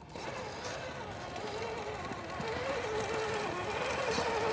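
Radio-controlled scale crawler truck's electric motor and geared drivetrain whining under load as it climbs a dirt ledge, the pitch wavering with the throttle and the sound growing louder as the truck comes closer.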